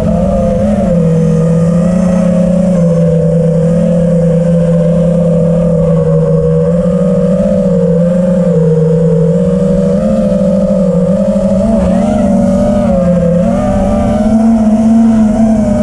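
Small multirotor drone's electric motors whining steadily in flight, the pitch wavering up and down with throttle and rising a little near the end.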